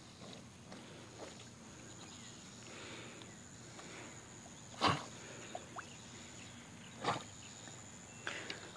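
A dog swimming, giving two short, sharp puffs of breath about five and seven seconds in, with a weaker one near the end. A steady high insect trill runs underneath.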